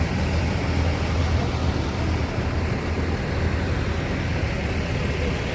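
Tour bus engine running steadily, a low even hum with road noise above it; no horn sounds.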